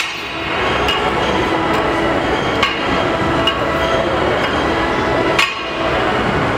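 Knocks from a loaded barbell, a sharp one at the start and another about five and a half seconds in as the bar is set down on the floor, with lighter clinks between. Under them runs a steady, loud rumbling hiss.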